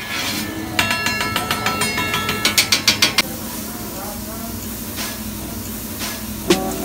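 Hibachi chef's metal spatula rapidly clanging and tapping on the steel teppanyaki griddle, a quick run of ringing metallic clinks that stops about three seconds in. After that, the steady murmur of diners talking in the restaurant.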